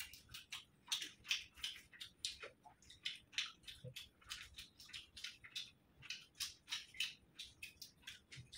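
Quiet eating sounds from two people eating chicken and rice with their hands: an irregular run of short chewing and mouth clicks, several a second.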